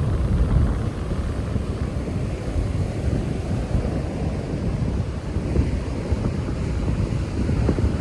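Strong wind buffeting the microphone with a steady low rumble, over ocean surf washing onto the beach.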